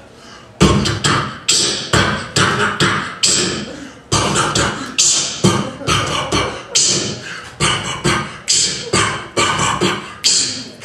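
A man beatboxing into a handheld microphone through the PA, imitating a rock concert's drumming. The hits come in a steady beat of a little over two a second, each with a hissing, cymbal-like edge, starting about half a second in.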